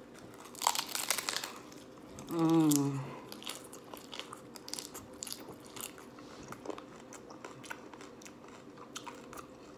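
Crisp fried corn taco shell crunching as it is bitten into, about a second in, then chewed with many small crunches. A brief hum with a wavering pitch comes between the bite and the chewing.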